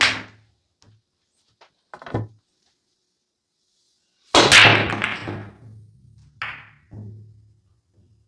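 Pool balls clacking: a sharp knock at the start and another about two seconds in. Then the loudest event, a 9-ball break shot about four and a half seconds in: the cue ball hits the rack and the balls scatter in a clatter that fades over a second or so. Two smaller ball knocks follow.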